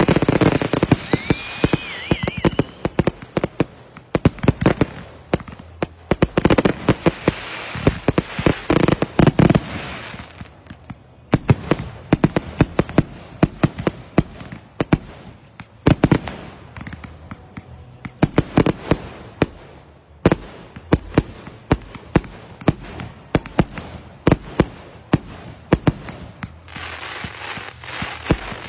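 Fireworks going off: a long series of sharp bangs and firecracker pops, thick and rapid in some stretches and sparser in others, with crackling between. A brief wavering whistle is heard about a second in.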